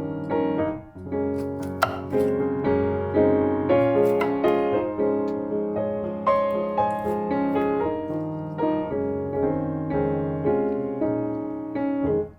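Background piano music, a run of single struck notes and chords.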